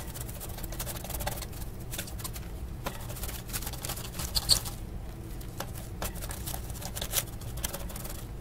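Brush scrubbing solder flux off a circuit board through a paper tissue: a run of irregular light scratches and rustles, the sharpest about four and a half seconds in, over a steady low hum.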